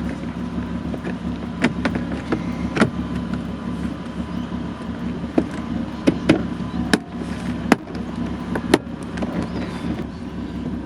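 Plastic clicks and knocks as a car door's window-switch panel and trim are handled and pressed into place: about eight sharp ones, irregularly spaced, over a steady low hum.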